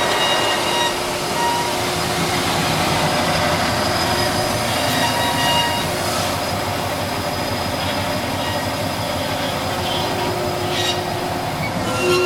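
Amada HFA400W horizontal band saw running: a steady, dense machine noise with faint thin tones that come and go.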